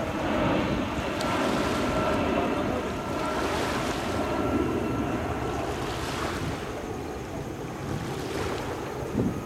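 Wind rumbling on the microphone over shallow water lapping, with swells of water noise every two to three seconds.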